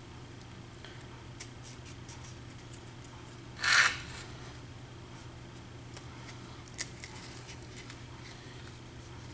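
Packing tape being wrapped and pressed around a wooden stick and a cardboard rocket motor tube: soft rubbing and crinkling with a few light ticks, one short, louder rustle of the tape a little over a third of the way in, and a sharp click near three quarters of the way.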